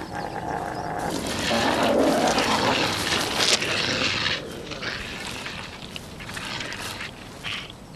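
Wolves growling at each other over a carcass, a threat display in a tussle over food. Louder in the first half, then quieter.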